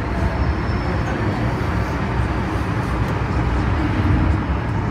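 MTR M-Train electric multiple unit running between stations, heard from inside the car by the door: a steady low rumble of wheels on rail and running gear.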